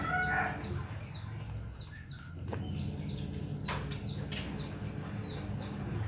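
Chickens: a rooster's crow tails off in the first half-second, then short, high, falling chirps repeat about three times a second over a steady low hum, with a few sharp knocks around the middle.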